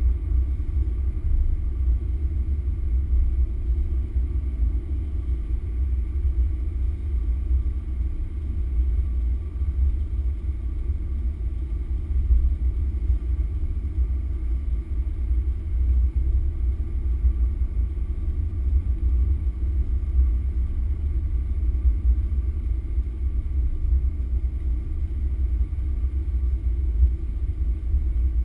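Steady low rumble of a car driving at an even speed: engine and road noise heard from inside the cabin, with no gear changes or revving.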